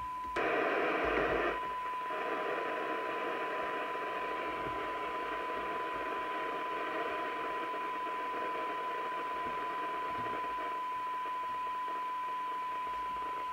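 Maxcom 6E CB receiver's loudspeaker giving a steady test tone from a signal generator over a hiss of receiver noise, during receive alignment of a set that was very deaf. A louder rush of hiss comes about half a second in and drops back after about a second.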